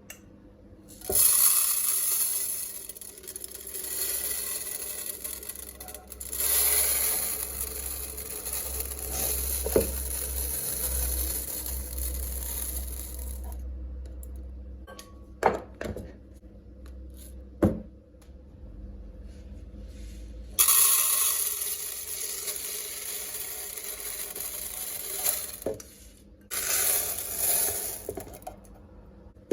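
Dry pulses poured into glass jars: long continuous rattling pours, with a few sharp knocks of jars or lids set down between them.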